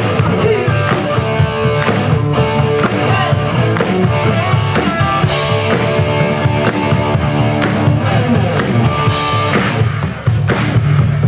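Live rock band playing loudly over a PA, with a steady drum beat.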